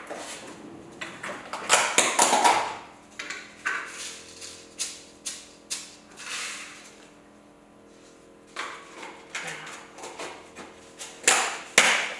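Clicks, clatter and knocks of kitchen things being handled: a drawer rummaged through, then a small glass jar. About six seconds in there is a short rush as coarse sea salt is tipped from the jar into the mixing bowl, and more knocks come near the end.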